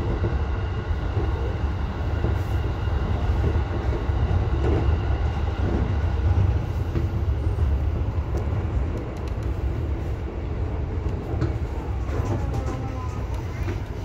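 Electric commuter train heard from inside the driver's cab: a steady low rumble of wheels on rail with a faint whine above it. It eases off a little about eight seconds in as the train slows for a station stop.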